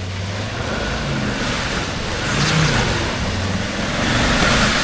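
Land Rover Discovery 4x4 driving through a muddy bog hole: the engine runs under throttle while water and mud hiss and splash around the wheels, the splashing growing louder about two seconds in.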